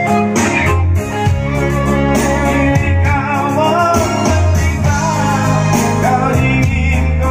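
Live music through a PA sound system during a sound check: a Yamaha PSR-S975 arranger keyboard with strong bass from the subwoofers, and a voice singing a wavering melody over it.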